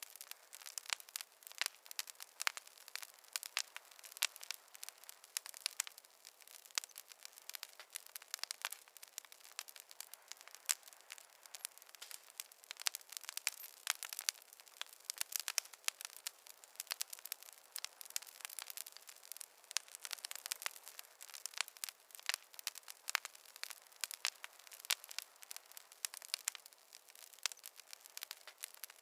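Wood fire crackling in a fireplace: a dense, irregular run of sharp pops and snaps over a soft hiss, with no low rumble.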